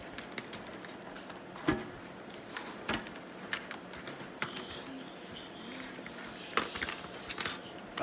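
Small plastic speed-cube pieces clicking and tapping as they are handled, fitted into the partly built cube and set down on the table: irregular sharp clicks, the loudest a little under two seconds in.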